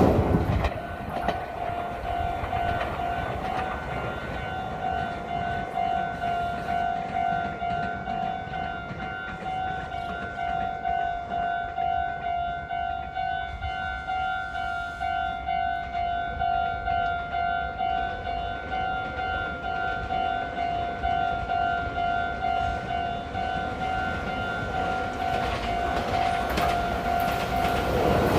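Level-crossing warning bell ringing with a steady, evenly repeating clang in two tones while the barrier stays down between trains. A train's rumble builds up near the end as the next train approaches.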